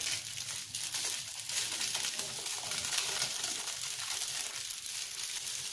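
Rice vermicelli and sliced meatballs sizzling in a wok while being stirred and tossed, a steady frying hiss with faint irregular stirring noises.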